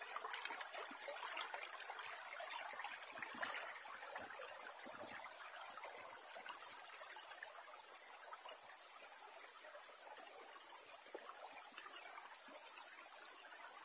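Shallow river water running and trickling over and between rocks, a steady burbling with no single splashes standing out; it gets a little louder about seven seconds in.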